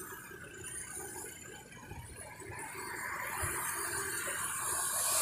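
Rain falling on a wet street: a steady hiss that grows louder from about halfway through.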